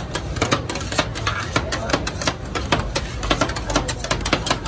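Metal spatulas clicking and scraping on a stainless-steel rolled-ice-cream cold plate as they chop a green ice-cream mixture while it freezes. The clicks come in a quick, irregular clatter, several a second.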